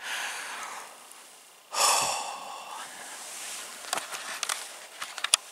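A man breathing out heavily twice, the louder breath about two seconds in, followed by a few light clicks and rustles near the end.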